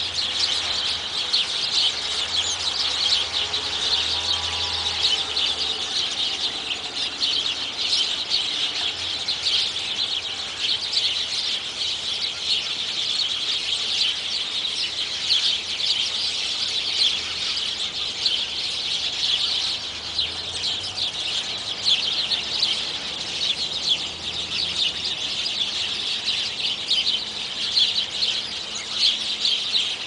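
A large flock of birds chattering and chirping, with many short calls overlapping in a dense, unbroken din.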